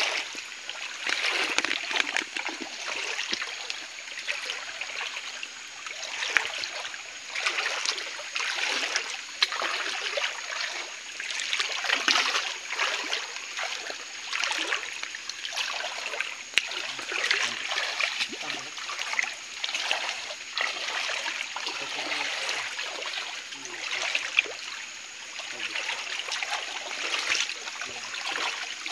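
Shallow stream water splashing and sloshing in irregular steps as people wade through it, over the steady trickle of the flowing stream.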